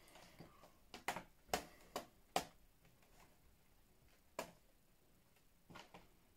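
A handful of light, sharp clicks and taps, irregularly spaced, from a laptop's bottom cover being handled and set back into position on the chassis.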